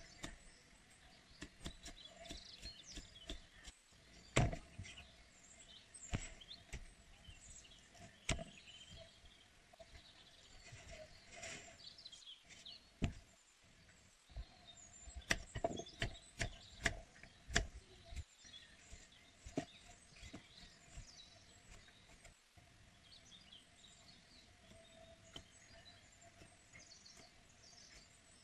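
Kitchen knife slicing vegetables on a thick round wooden chopping block: irregular sharp knocks of the blade striking the wood, with quicker runs of strokes about halfway through. Birds chirp faintly in the background.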